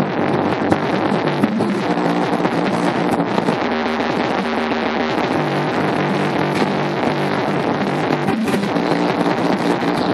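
Drum and bass music played loudly through a Creative T6100 subwoofer, a heavy bass line stepping between notes, recorded close enough that the sound is harsh and overloaded.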